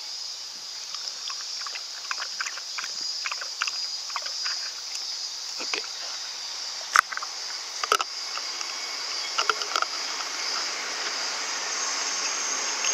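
A dog lapping water from a small plastic cup, quick wet clicks for the first few seconds. A few louder plastic clacks follow as the cup and water bottle are handled. A steady high drone of insects runs underneath.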